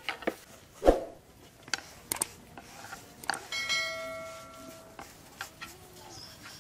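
Kitchen clatter of utensils: scattered clicks and knocks, a heavier thump about a second in, and a strike about halfway through that leaves a ringing tone fading over a second or so.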